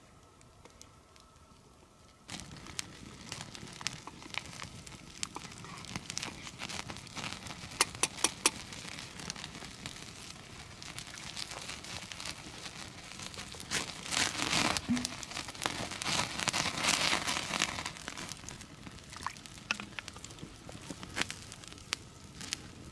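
Wood campfire crackling, starting abruptly about two seconds in, with sharp snaps scattered through and a louder, denser stretch of crackling a little past the middle.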